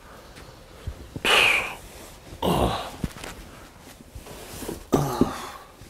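A man groaning and sighing, three drawn-out breathy sounds a second or so apart.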